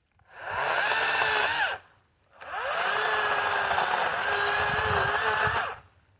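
Kobalt 40V Max battery chainsaw run in two bursts, a short one then a longer one, its motor whine rising as it spins up and dropping as it stops.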